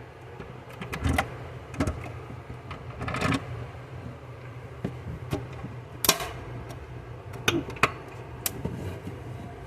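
A 1/18 scale model car being handled: a series of short clicks and knocks, the sharpest about six seconds in, over a steady low hum.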